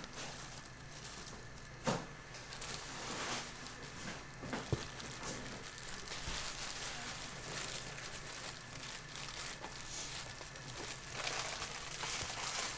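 Clear disposable plastic food-prep gloves crinkling and rustling as hands press and roll a large gimbap, with a couple of short knocks.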